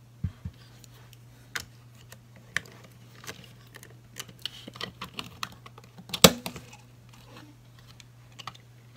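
Irregular clicks, taps and knocks of fingers handling a Cogsworth clock figure's case and its open back, busiest in the second half, with one louder knock about six seconds in.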